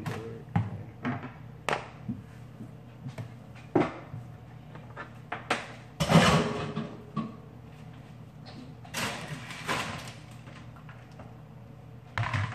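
Plastic food containers being handled, slid and set down on a kitchen countertop: scattered knocks and clatter with short rustling handling noises.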